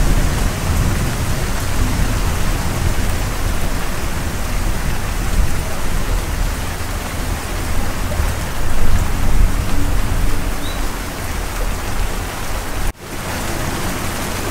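Steady rain falling, with a deep low rumble underneath. Near the end the sound cuts out for an instant and comes back slightly quieter, with less rumble.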